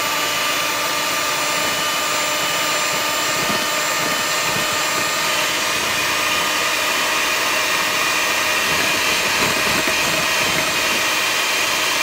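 Hamilton Beach electric hand mixer running steadily with a constant whine, its beaters whipping egg whites into foam in a glass bowl.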